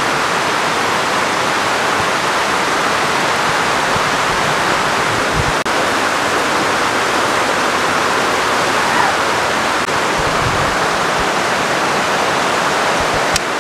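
Heavy rain pouring down steadily, a dense even hiss of rain falling on trees and ground.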